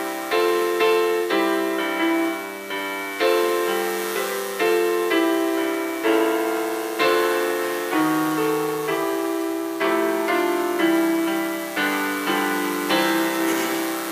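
Piano playing a slow chordal hymn introduction, each chord struck and left to fade before the next.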